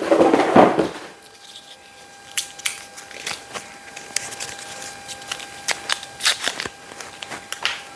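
Plastic parts of a cordless vacuum and its charger being handled and plugged in: a louder rustle at first, then scattered sharp clicks and taps. A faint steady tone starts about a second in.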